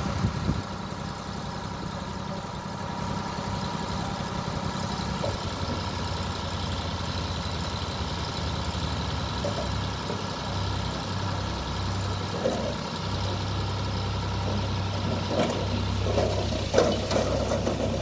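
Sonalika DI 50 tractor's diesel engine running steadily under load as its hydraulics tip the trailer bed; the engine note shifts twice along the way. Near the end the load of soil and clods starts sliding off the tipped bed, adding an uneven rumble and knocks.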